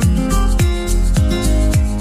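Background music with a steady beat, a deep drum hit about every half second.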